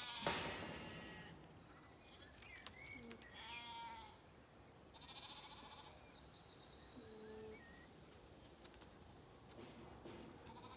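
A few faint, short pitched calls from livestock, spaced a couple of seconds apart. Thin high chirps of birdsong sound around the middle, and a short rush of noise comes just after the start.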